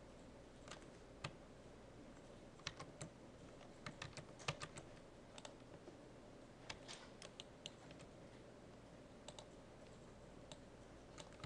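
Faint, scattered clicks of a computer keyboard and mouse being worked, coming in irregular little clusters over quiet room tone.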